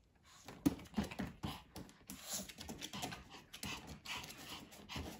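Irregular light tapping and clicking: a Pomeranian's claws and paws on a plastic toy ride-on car as it fidgets, begging for a treat.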